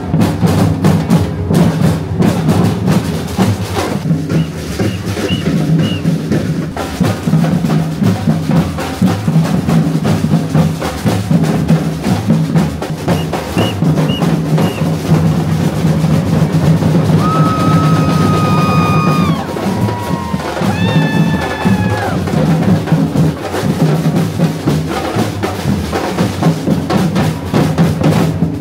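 Street drum line playing loud, driving rhythms on large bass drums beaten with mallets and snare drums. About two-thirds through, two held high-pitched tones cut in over the drums.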